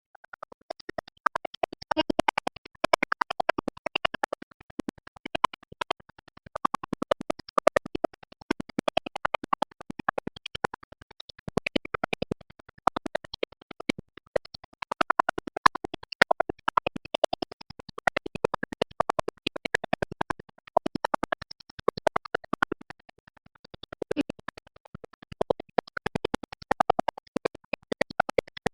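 Intro music with DJ-style scratching over a rapid chopped, stuttering beat.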